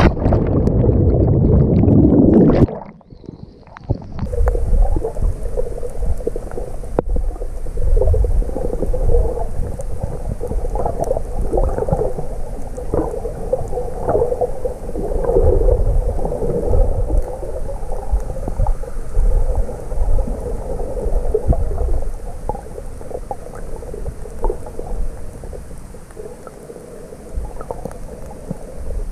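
Sea water splashing against the camera at the surface for the first few seconds, then muffled underwater sound once the camera is under: a steady low rumble with gurgling and crackling.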